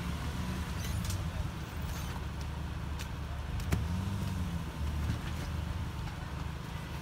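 Off-road 4x4 engine running under load, revving up and easing off twice as the vehicle crawls through an obstacle, with a few clicks and one sharp knock about four seconds in.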